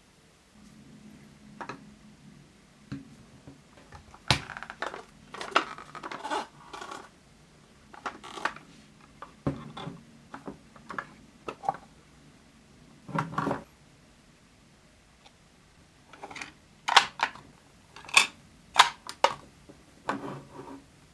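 Small plastic toy parts and packaging being handled: irregular clicks, taps and light rustles, with a run of sharper clicks near the end, over a faint low hum.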